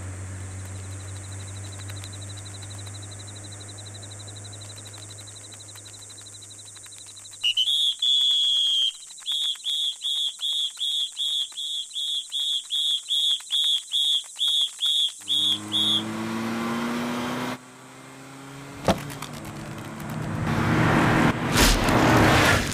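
Car engine idling with a steady low hum, then cutting out, followed by a quick train of short high-pitched beeps. The engine then comes back in, rising in pitch, and ends in a loud rush of tyres spinning on the asphalt as the car pulls away.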